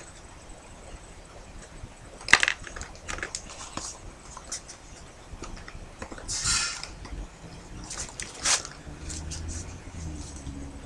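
Stiff folded-paper model pistol parts handled and fitted together: scattered paper rustles and taps, the sharpest about two seconds in, and a longer paper swish around six seconds in as the paper magazine slides into the grip.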